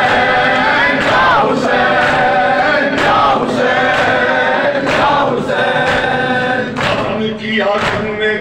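Group of men chanting a noha in unison, with chest-beating (matam) slaps from open hands.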